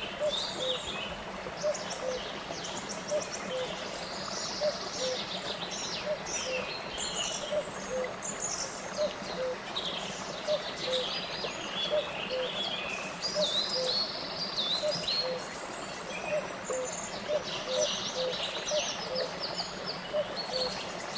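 Many small birds chirping and trilling over the steady rush of a shallow stream running over rocky cascades. A short low note repeats about every two-thirds of a second underneath.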